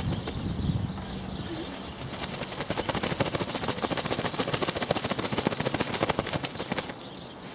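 Rapid rustling and flapping, many strokes a second, as a vacuum cleaner bag or filter is shaken out by hand to clear the last dust; it stops suddenly near the end.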